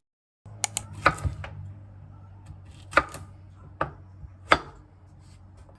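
A handful of sharp, irregularly spaced taps and knocks over a steady low hum, the loudest about three and four and a half seconds in.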